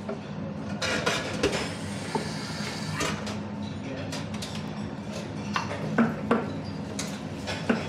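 Busy café espresso-bar working sounds: ceramic cups, glasses and metal milk jugs clinking and knocking every second or so, over a steady low hum and background chatter.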